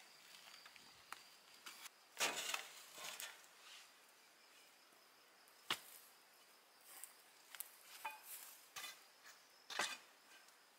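Quiet outdoor ambience: a few short scuffs and taps, one sharp click near the middle, over a faint steady high-pitched tone.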